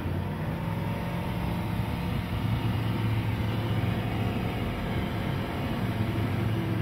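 Light aircraft's piston engine and propeller running steadily at takeoff power as the plane rolls down the runway and lifts off.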